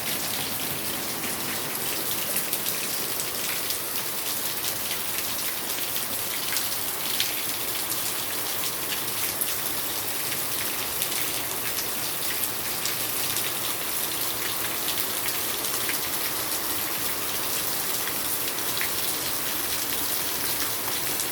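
Heavy rain falling steadily: a dense, even hiss of countless drops.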